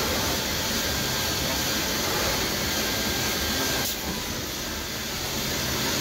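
CNC panel boring machine running: a steady rushing, whirring machine noise with a low hum underneath, dipping slightly about four seconds in.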